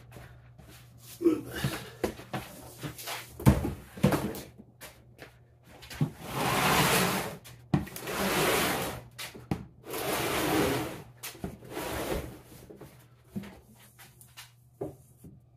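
Plastic storage bins and a cardboard box being moved by hand: a few knocks and bumps, then four long scraping slides of about a second each, then a few light knocks near the end.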